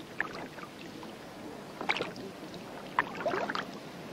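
Water splashing and sloshing, with a few sharp splashes at irregular intervals.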